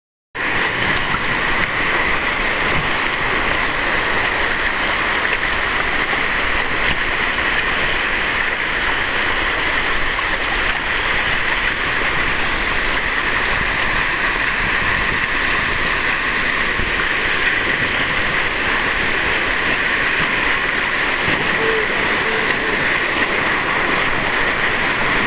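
River rapids rushing steadily around an inflatable raft: an even, unbroken sound of fast water that cuts in suddenly just after the start.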